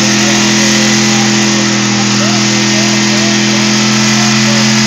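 A vehicle engine held at high, steady revs: a loud, unchanging drone while the vehicle pours out white smoke.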